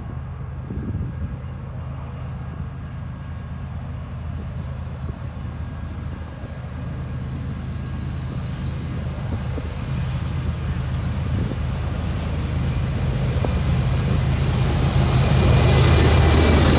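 Diesel freight locomotives approaching and coming past: a low, steady engine drone that grows louder throughout, with a rushing sound in the upper range joining near the end as the lead units reach the camera.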